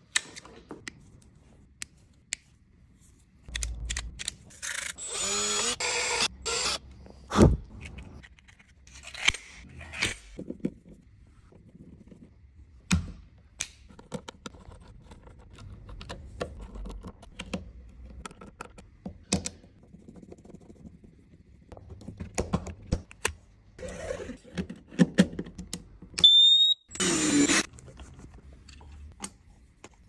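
A string of small clicks, snips and scrapes from hand tools and parts being handled while braided flex is cut, stripped and screwed into a smoke alarm's terminals, with two longer rasping stretches, one about five seconds in and one near the end.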